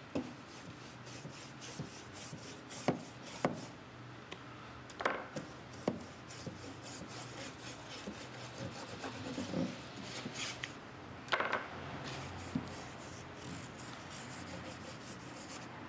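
A paintbrush and cloth scrubbing and wiping watery acrylic wash on the wooden walls of a dollhouse. Light rubbing throughout, with a few sharp taps scattered through as the brush and model are handled.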